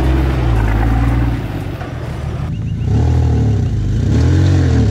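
Four-wheel-drive engines working hard on a steep off-road climb. A Nissan GQ Patrol's engine holds a steady drone for the first second or so. After a cut, another four-wheel drive's engine rises and falls in revs as it climbs.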